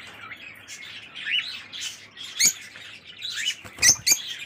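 Small caged parrots chirping: a scatter of short, sharp, rising chirps, the loudest about halfway through and again near the end.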